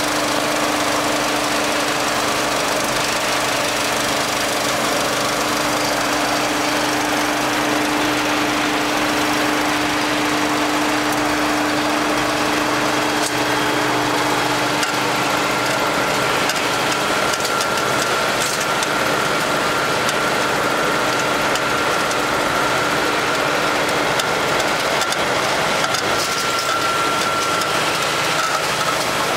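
Sawdust pellet production line running: electric-motor-driven hammer mill and vertical ring-die pellet mill, giving a loud, steady machine noise with a hum. About halfway through the hum fades and a thin, steady, higher whine comes in.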